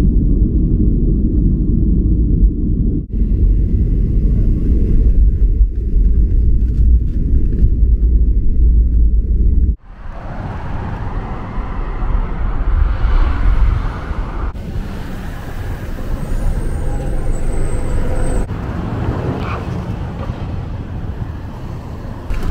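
Loud, steady low rumble of a jet airliner's cabin noise, which cuts off suddenly about ten seconds in. City street traffic follows, with vehicles passing and a brief high-pitched squeal near the middle.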